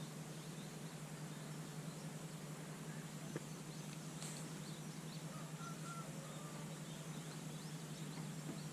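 Quiet rural outdoor ambience: faint, scattered bird chirps over a steady low hum, with a single soft click a little over three seconds in.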